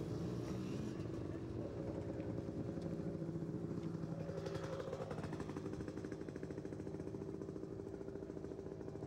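Dirt bike engines running steadily off to the side, a fast, even pulse with a few held pitches that shift a little partway through.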